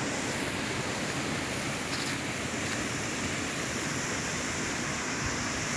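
Steady rushing of falling water from a waterfall, an even hiss-like noise with no change in level.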